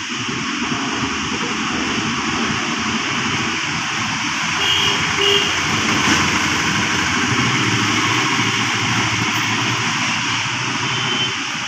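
Steady, loud mechanical noise of running machinery.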